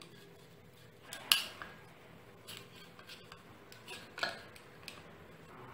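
Small metal tin of oil paint being handled: a few sharp metallic clicks and taps, the loudest about a second in and another about four seconds in.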